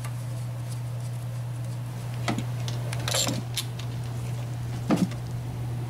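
A few light metallic clicks and clinks as the brake-line bracket bolt is started by hand and a tool is put to it. There are two single clicks, then a sharper double click near the end, over a steady low hum.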